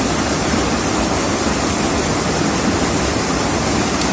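Steady rush of fast-flowing river water, a loud even hiss that does not change.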